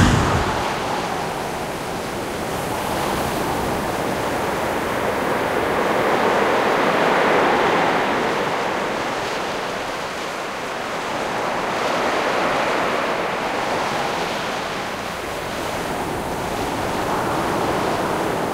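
Sea surf washing on a beach: a steady rushing wash that swells and fades every few seconds as waves break.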